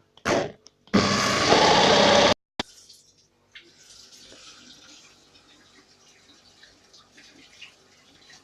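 Milk poured from a container in one steady pour of about a second and a half, starting about a second in and stopping abruptly.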